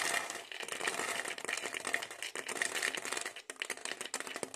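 Dried fava beans clattering and rustling as a hand scoops them from a plastic bowl and pushes them into an empty plastic soda bottle: a dense, continuous run of small clicks.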